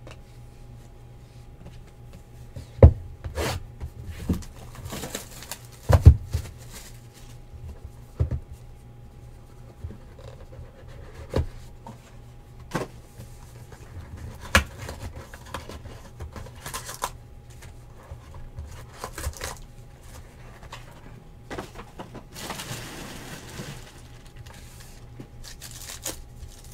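Trading cards and their boxed foil packs handled on a table: scattered taps and knocks, the loudest two about three and six seconds in, and a few seconds of rustling later on.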